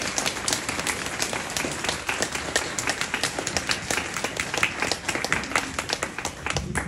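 Audience applauding: many hands clapping together at the end of a talk, dying away near the end.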